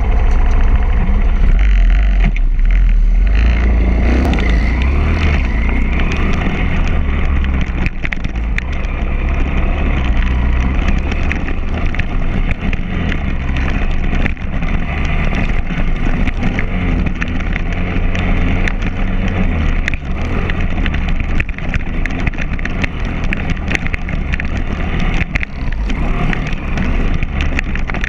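Pit bike's small single-cylinder engine revving up and down continuously as it is ridden around a dirt motocross track, heard from a camera mounted on the bike, with heavy low rumble throughout.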